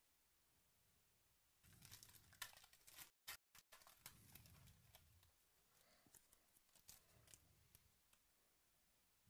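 Near silence, then faint rustling and clicking of trading cards being handled and slid in the fingers, starting a little under two seconds in; the sound cuts out completely for an instant two or three times around the third second.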